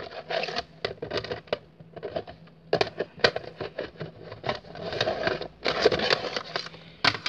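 Handling noise: irregular clicks, knocks and rustling as things are moved about close to the microphone.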